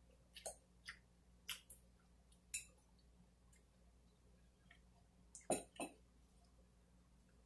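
Quiet eating at the table: a few faint clicks of a fork in a glass salad bowl, with chewing. About five and a half seconds in come two louder knocks as the glass bowl is set down.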